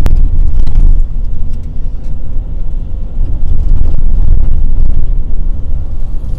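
Steady low rumble of a moving vehicle heard from inside its cabin, with a sharp click just at the start and scattered light rattles.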